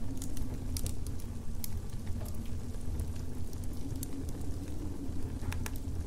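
Fire crackling, with scattered sharp pops, over a steady low rumble; a humming tone in the rumble slides upward near the end.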